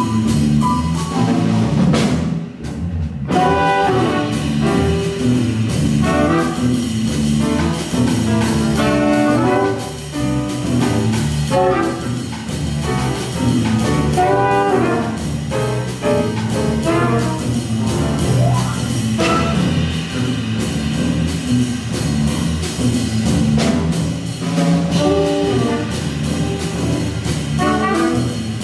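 Live jazz sextet playing: tenor saxophone, alto saxophone and trumpet playing a melody together over piano, bass guitar and a drum kit with cymbals, with a short break about two seconds in.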